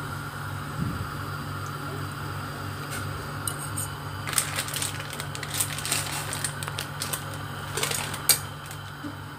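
Noodles boiling in water in a stainless steel pot, over a steady low hum. From about four seconds in comes a cluster of light clicks and ticks, with one sharper click near the end.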